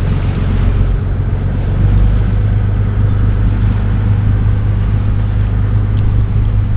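Tour boat's engine running with a steady low drone, slightly louder about two seconds in.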